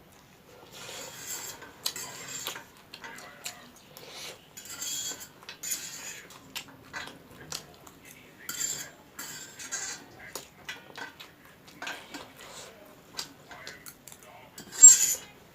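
Close-miked eating of spicy instant noodles: a utensil clinking and scraping against the bowl amid repeated slurps, the loudest slurp near the end.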